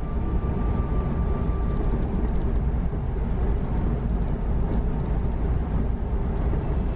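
Steady low rumble of road and engine noise inside a vehicle cabin travelling at highway speed, with a faint steady high tone that stops about two seconds in.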